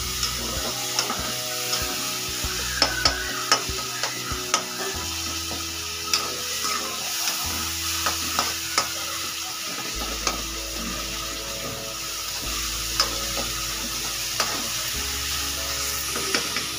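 Onion-tomato masala sizzling as it fries in a steel kadai, stirred with a metal spatula that clicks and scrapes against the pan now and then. The masala is being fried down with a little water so the spices don't burn.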